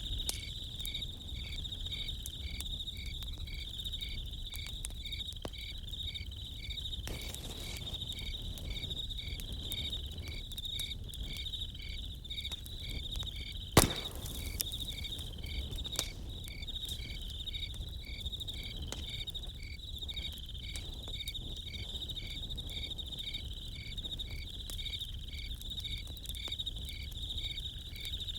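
Crickets chirping in a steady chorus, one pulsing about two to three times a second, over a low rumble and the scattered crackle of a campfire. A single sharp pop from the fire about halfway through is the loudest sound.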